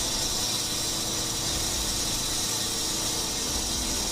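Power saw cutting a control joint line down the middle of a rapid-set concrete patch, running steadily with a high, hissy whine.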